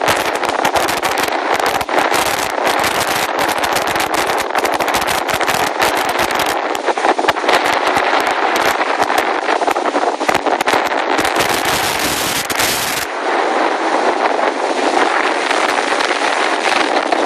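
Hurricane-force wind buffeting the microphone: a loud, crackling rush of noise. About thirteen seconds in the deep rumble drops away and it settles into a steadier hiss.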